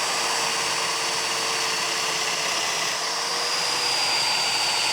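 Festool Domino joiner running steadily while cutting a mortise for a drawer divider, a steady motor noise with a faint high whine.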